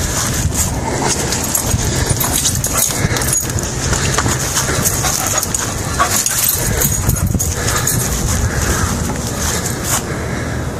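A McNab dog making vocal noises during play. They are heard over a loud, steady rushing and rustling as the camera is swung about and carried at a run.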